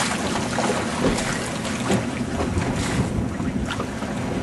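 Wind buffeting the microphone in a steady rumble, with water lapping against the boat's hull in small irregular slaps.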